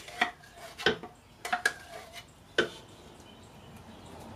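A spoon knocking and scraping against a tin can while tomato sauce is emptied from it into a slow cooker: about six light knocks in the first two and a half seconds.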